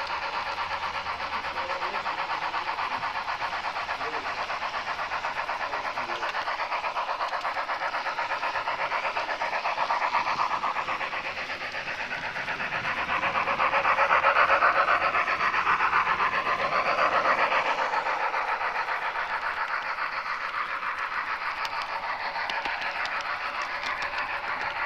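HO-scale model train running along the layout's track: a steady rolling, finely ticking noise that swells about ten seconds in and again from about thirteen to eighteen seconds in.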